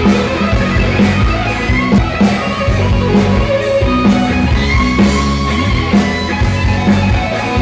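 Live rock band playing, with electric bass, guitar and drums keeping a steady beat.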